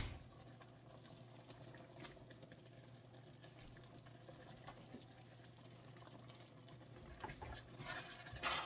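Faint bubbling of a stew sauce simmering in a wok over a steady low hum, with a spatula stirring and tapping in the pan near the end.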